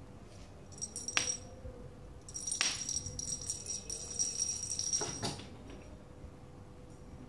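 Small jingle bell on a cat's wand toy being shaken: a short jingle about a second in, then a longer ringing jingle from about two and a half seconds to five seconds.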